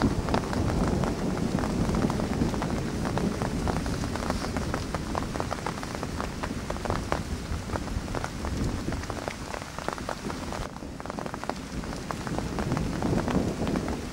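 Heavy rain falling, with many close drops striking a surface near the microphone, over a low continuous rumble of thunder.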